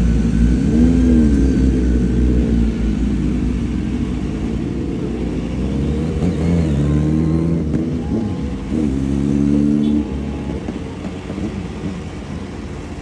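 Motorcycle engines running and revving in a street procession. Rising-and-falling revs come about a second in, around six to seven seconds in and around nine to ten seconds in, over a steady low rumble.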